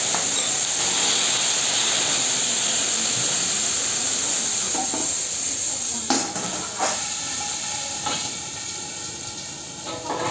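Loud steady hiss of food sizzling and steaming on a hot teppanyaki steel griddle, slowly fading. A few metallic clanks of tools on the griddle come about six to eight seconds in.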